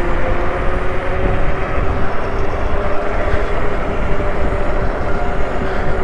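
Wind rushing over the microphone while riding an electric bike, with a steady whine of a few even tones underneath.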